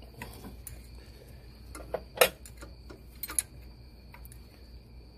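Steel open-end wrench clinking against the brake-line flare nuts and fittings of an ABS hydraulic unit as it is fitted and turned: a few sharp metallic clicks, the loudest about two seconds in and two more a second later.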